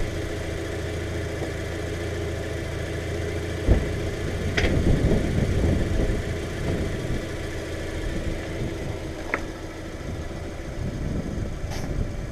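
2008 Subaru Outback engine idling steadily while the car is backed down off its ramps. A sharp thump comes a little under four seconds in, followed by a few seconds of rougher rumble.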